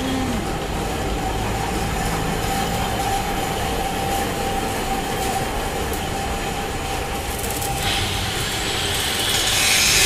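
Metal-workshop machinery running with a steady hum and one constant whine. About eight seconds in, an angle grinder starts grinding steel with a harsh, high-pitched noise that grows louder.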